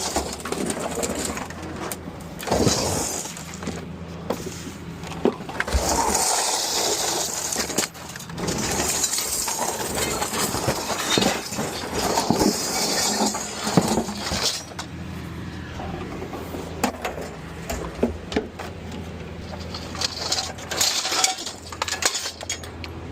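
Loose scrap metal, mostly old mower parts, clanking and clattering in irregular knocks and scrapes as the barrel is emptied, over a steady low engine hum.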